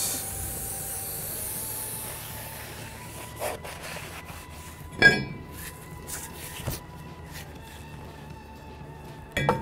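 Aerosol brake parts cleaner hissing as it is sprayed on a brake rotor, dying away about two seconds in. Then rag rubbing on the rotor, with a few light knocks and clinks, the sharpest about halfway through.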